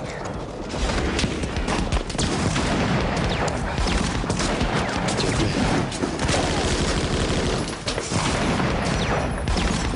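Battle gunfire: a dense fusillade of rifle and machine-gun shots overlapping without a break.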